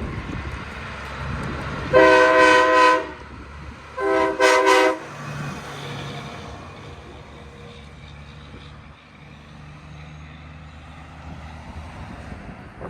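Locomotive air horn sounding two blasts of about a second each, roughly two seconds apart, over the low rumble of the train.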